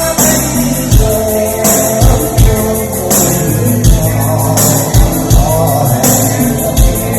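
Song music with a steady kick-drum beat, bass and a melody line, probably a vocal line, over it.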